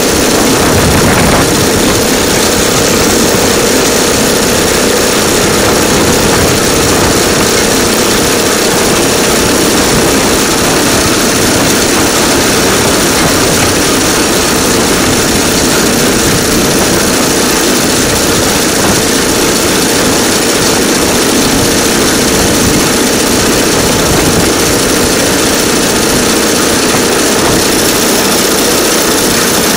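DL2 motor draisine running steadily along the rails, a loud, even engine drone with a steady hum that does not change speed.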